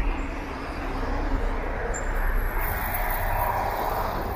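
Road traffic on a town street: a passing vehicle's tyre and engine noise swells about two and a half seconds in, then eases off.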